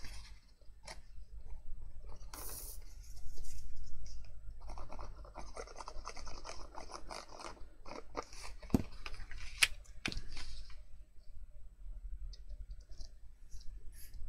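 Stiff embossed cardstock being handled, slid and scraped on a hard desk top, with two sharp taps just past the middle and quieter rustling toward the end.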